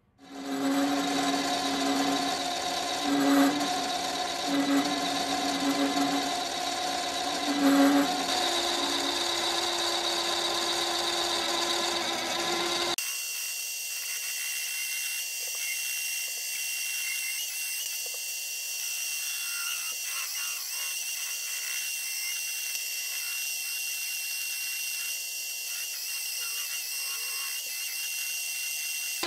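Mini metal lathe running, its carbide insert tool cutting a chamfer on a spinning steel ring, a steady machine whine with cutting noise. It swells a few times in the first eight seconds, and about thirteen seconds in the sound turns abruptly thinner, without its low end.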